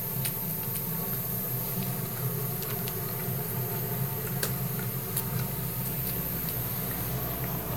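Dog chewing and licking at the neck of a plastic bottle: scattered small clicks and crackles at irregular moments, over a steady low hum.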